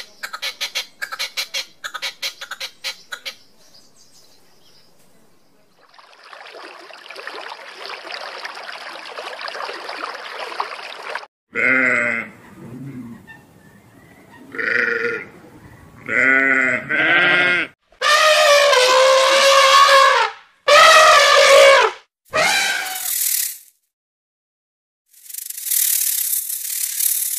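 A goat bleating over and over, each call loud and wavering, most of them in the second half. Before the bleats come a quick series of clicks at the start and a stretch of rushing noise, and a hiss starts near the end.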